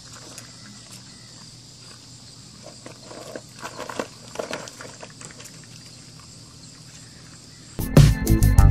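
Faint rustling and light clicking of dry peanut shells as chipmunks rummage in a bucket of peanuts, over a steady low hum. Near the end, loud music with a steady beat starts abruptly.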